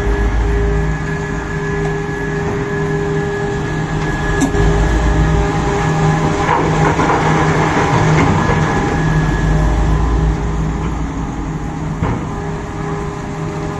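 Komatsu PC4000 mining excavator running steadily under load. It has a louder stretch of grinding and scraping in the middle, as the bucket scrapes solid rock left by poor blasting.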